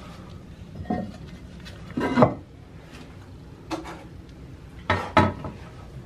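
Porcelain toilet tank lid being lifted off and handled, knocking against the ceramic tank in a few hard clunks, the loudest about two seconds in and a quick double knock near the end.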